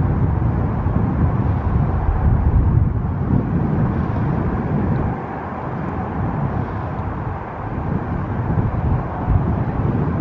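Distant Antonov An-124-100's four Progress D-18T turbofans running at taxi power: a steady low rumble, slightly quieter for a few seconds in the middle.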